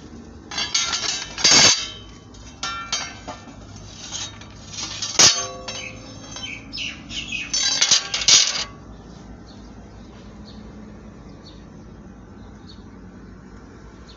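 Steel brake discs from a Hitachi 310 excavator clanking and clinking against each other as they are handled, in several clattering bursts over about nine seconds. One sharp strike about five seconds in rings on briefly.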